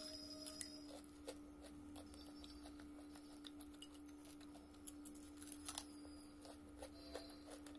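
Faint, scattered light clicks and taps from a fried chicken drumstick being handled over a ceramic plate, a few sharper ticks near the end, over a steady faint low hum.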